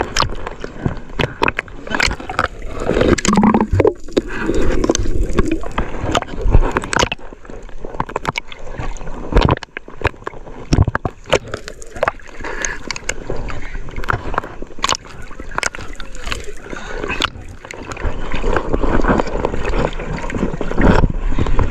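Sea water sloshing and splashing around a camera bobbing half-submerged at the surface, with many short splashes and knocks as waves slap the housing.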